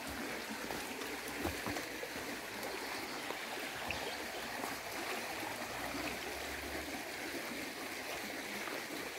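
Shallow river running over stones: a steady rippling rush of water.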